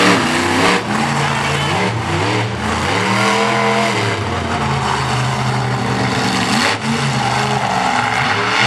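Bounty Hunter monster truck's supercharged V8 engine running hard, its pitch surging up and dropping back several times as the throttle is worked.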